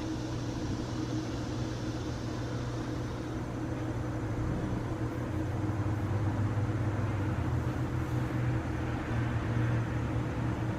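A Hampton Bay Industrial 60-inch ceiling fan running steadily on a low speed: a low hum over an even hiss, the hum growing a little stronger about halfway through.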